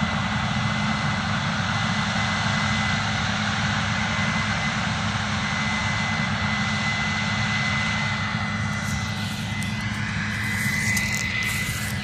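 Case IH 7120 combine running while harvesting corn: a steady drone of engine and threshing machinery with a thin high whine over it. From about three-quarters of the way in, crackling handling noise joins as the microphone is moved.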